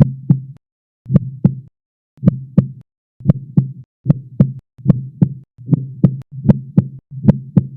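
Heartbeat sound effect: nine double lub-dub thumps that speed up, the beats coming closer together toward the end, then stopping abruptly.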